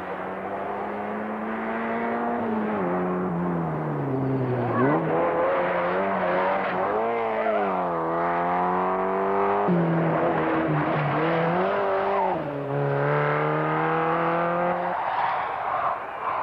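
Rally car engine revving hard at full throttle on a special stage. Its pitch climbs and then drops sharply at each gear change, several times over, before fading near the end.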